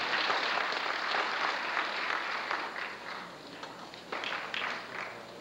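Audience applauding, dense at first and thinning out to a few scattered claps near the end.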